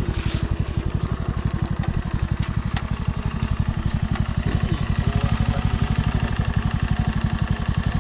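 A small engine running steadily with an even, fast putter of about ten beats a second.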